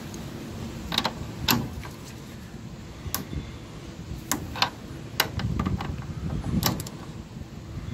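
Sharp metallic clicks, one or two at a time at irregular intervals, from a Würth ratcheting torque wrench and its socket being fitted and worked on a solar inverter's power terminal bolts during a 25 Nm torque check, over a low rumble.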